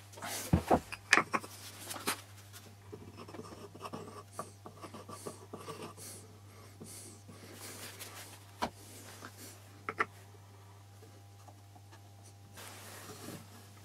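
Hands handling small turned wooden box parts on a wooden board and squeezing glue from a plastic bottle: a few light knocks at first, then soft rubbing and scraping, and a couple of sharp clicks later on. A steady low hum lies under it all.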